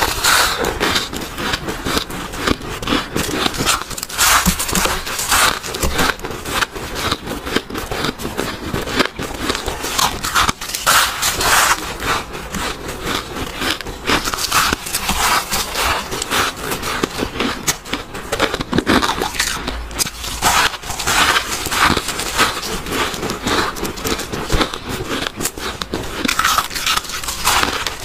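Mouthfuls of soft, fluffy frost ice being bitten and chewed into a close lapel microphone: a dense, continuous run of squeaky crunches and crackles.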